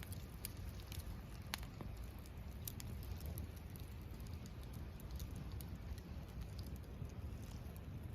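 Wood bonfire burning: scattered sharp crackles and pops, roughly one a second, over a low steady rumble.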